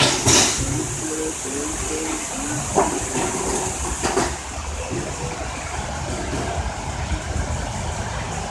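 Steady outdoor background noise: a low, uneven rumble under a constant hiss, with a few short knocks in the first half.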